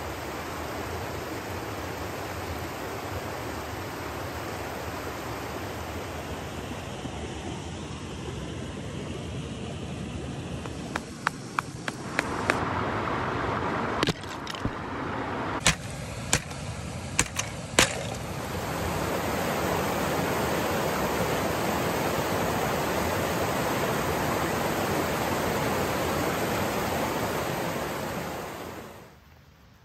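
Mountain stream rushing over rocks and small waterfalls. In the middle, a hiking boot steps onto thin sheet ice over rock, and the ice gives a series of sharp cracks and snaps as it breaks. Near the end the rush of the cascades swells, then fades away.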